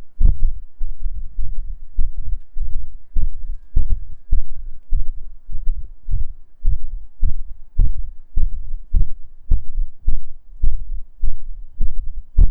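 Breath blown onto a microphone, making regular low thumps about two a second that sound like a heartbeat on an ultrasound.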